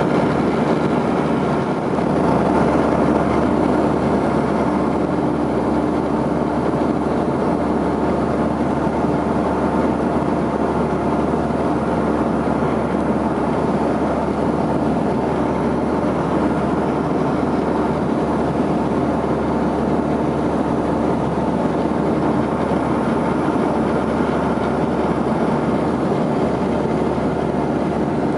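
Steady vehicle engine drone, with a few constant pitched tones over an even noise.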